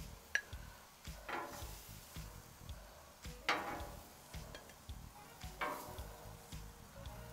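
Metal tongs lifting seared scallops off a hot Blackstone steel griddle one at a time: a short scrape with a burst of sizzle three times, about two seconds apart, and a sharp click of the tongs just after the start, over faint sizzling from the food still cooking.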